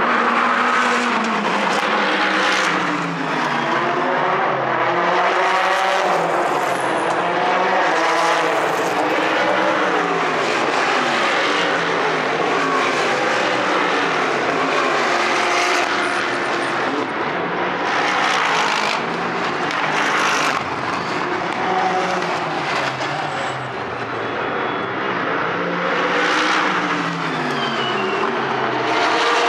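Race car engines passing one after another at high revs, their pitch climbing and then falling away as each car goes by, in a near-continuous stream.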